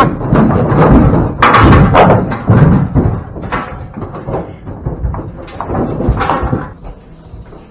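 Cattle moving through a metal livestock trailer: hooves clatter and bang on the floor and walls. The knocks come thick and loud for the first three seconds or so, then thin out to lighter bumps.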